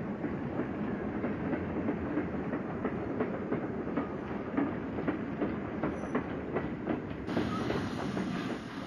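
Steam locomotive on the move, its running noise broken by many sharp clicks and clanks of wheels over rail joints. A brighter hiss comes in near the end.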